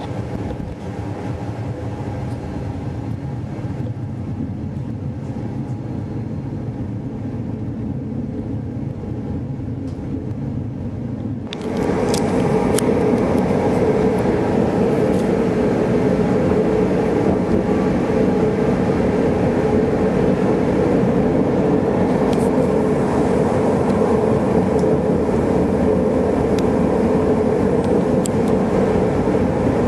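Tram running noise: a steady, quieter hum at first, then about twelve seconds in a sudden jump to a louder, steady rumble and hum of the tram running along street track, with a few brief high-pitched ticks.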